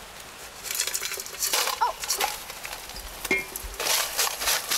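A heap of scorpions tipped from one aluminium bowl into a larger aluminium basin and stirred with tongs: irregular rustling and scraping with clinks of metal on metal.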